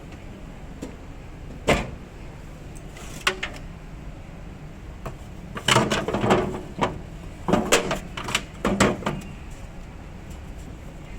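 Refrigerator doors and drawers being handled, opened and shut: a sharp knock about two seconds in, another shortly after three seconds, then two bursts of clattering knocks and thuds around six and eight seconds, over a steady faint hiss.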